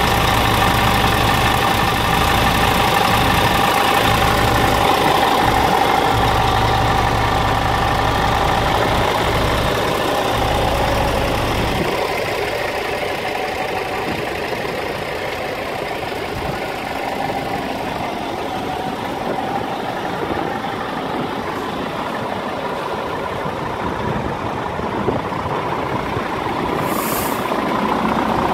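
Scania R490's 13-litre straight-six diesel engine idling steadily. A deep low rumble drops away about twelve seconds in, and a brief high hiss comes near the end.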